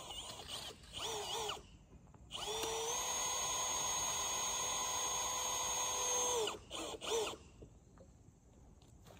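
Power drill run in a few short trigger bursts with wavering pitch, then held for a steady run of about four seconds that rises to speed and holds an even whine, then two quick blips near the end.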